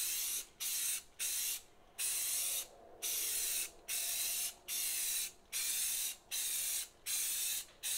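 Aerosol can of Rust-Oleum 2X primer spraying in a steady string of short hissing bursts, about one every three-quarters of a second. This is light dusting, building the primer up in thin coats on a wall.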